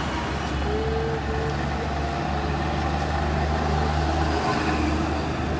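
Bus engine running low as a bus passes close by, over steady city traffic noise, with a brief steady tone about a second in. The engine hum drops away after about four seconds.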